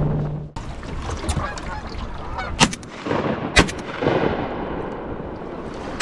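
Boat engine cutting off about half a second in, then Canada geese honking and two shotgun blasts about a second apart, with another shot right at the end.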